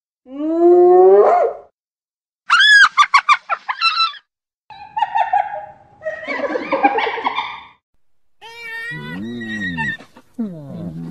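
Spotted hyenas calling. A rising call comes first, then a quick run of short high notes about two and a half seconds in, a rougher stretch of overlapping cries, and low rising-and-falling calls near the end.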